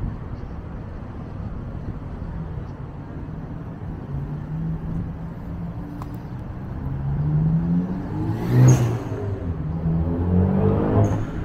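Road traffic on a city street: a steady low rumble, then vehicles driving past, one engine accelerating with rising pitch and loudest about nine seconds in, with another vehicle passing close behind.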